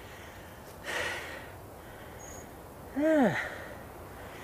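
Two short animal calls out of shot: a harsh, breathy call about a second in, then a clearer call that rises and falls in pitch about three seconds in, over a steady outdoor hiss.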